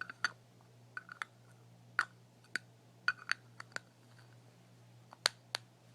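Fingernails tapping and clicking irregularly on a hard plastic bronzer compact, a dozen or more light sharp taps, some in quick pairs.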